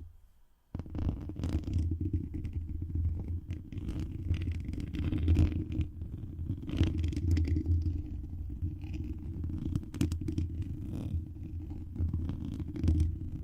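Close friction sounds on a microphone: a dense, low rubbing rumble with scattered small clicks and scratches. It starts after a short silence just under a second in.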